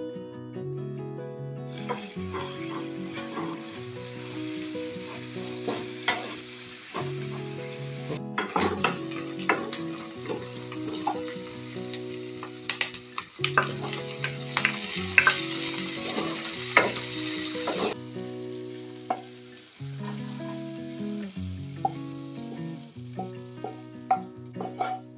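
Sliced onions and green chillies sizzling in hot oil in a frying pan, with the clicks and scrapes of a wooden spatula stirring them. The sizzling stops about 18 s in, leaving only plucked acoustic guitar music, which plays underneath throughout.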